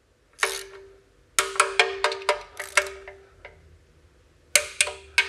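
Hand torque wrench ratcheting as oil pan bolts are tightened: sharp metallic clicks, each with a short ring. One click comes first, then two quick runs of clicks, the second near the end.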